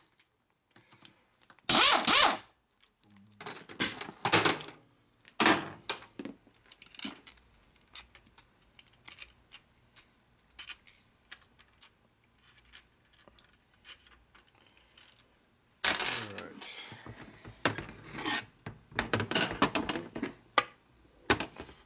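A handheld pneumatic driver runs in three short bursts as it backs out the screws of an engine cam cover. Then come many small metal clicks and clinks as the loose screws and the cover are handled, with a louder rattle about 16 seconds in.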